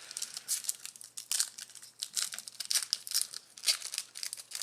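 The wrapper of a trading-card pack being torn open and crinkled by hand: a quick, irregular run of crackles.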